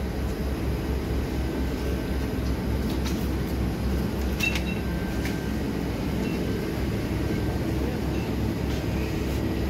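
Steady low rumble of supermarket background noise, with a few faint clicks a few seconds in.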